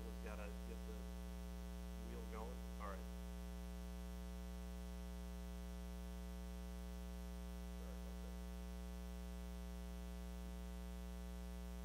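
Steady electrical mains hum with a ladder of overtones in the recording's sound feed, the sign of the audio fault during the sermon. A few faint snatches of speech come through in the first three seconds and again about eight seconds in.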